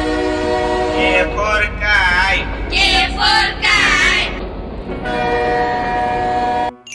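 A cartoon train sound effect: a train horn sounding as a steady held chord over a low rumble, cutting off suddenly near the end. A high, wavering voice sounds over it for a few seconds in the middle.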